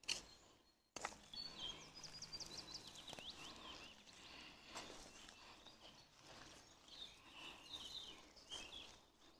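Faint birdsong: quick high chirps and short trills. Beneath it, soft rustling and a few light knocks as soil and potted seedlings are handled.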